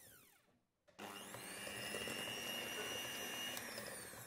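Electric hand mixer winding down to a stop. About a second in it is switched on again and runs steadily at medium speed, a motor whine with its beaters whisking softened butter in a glass bowl. The pitch starts to drop near the end as it winds down.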